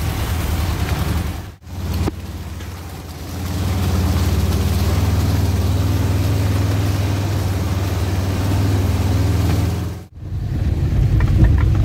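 A motor vehicle's engine running steadily, a low hum that cuts out briefly twice, about one and a half seconds in and again near the end.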